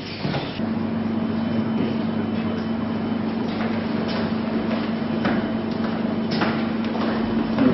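Footsteps and scattered knocks of several people walking down indoor stairs, over a steady low hum that starts about half a second in.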